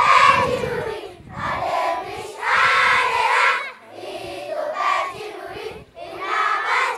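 A large group of schoolchildren singing together in chorus, in phrases of a second or two with short breaths between them.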